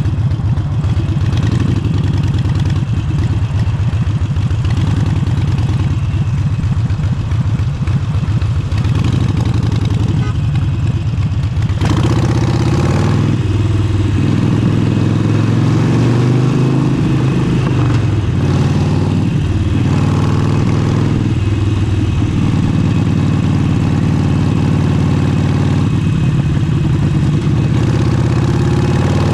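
Harley-Davidson Forty-Eight's air-cooled V-twin through an aftermarket Vance & Hines exhaust, running with a steady low-rpm beat. From about twelve seconds in it is revved up and eased off several times, the pitch climbing and dropping in steps.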